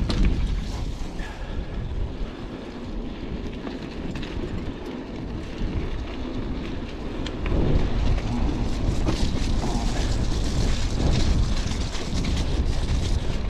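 Klunker bicycle (a converted Huffy Good Vibrations cruiser) riding down a rough dirt trail: a steady rumble of tyres over the ground and wind on the microphone, with the bike rattling over bumps. It gets louder about seven to eight seconds in.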